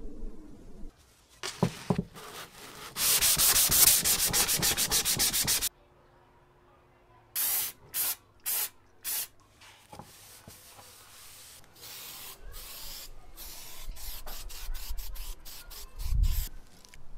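Abrasive rubbing on the bare metal seat of a 1960s Cyclops tricycle: a steady stretch of scrubbing, then four separate short strokes. Later come many short hisses from an aerosol spray can putting grey paint on the seat.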